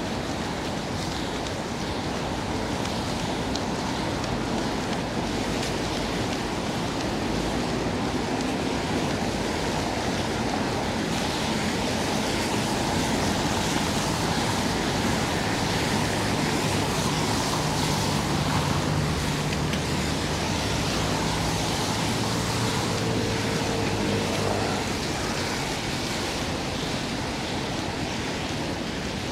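Steady rushing noise of rain and city street traffic, with a low engine hum rising for a stretch in the middle and then fading.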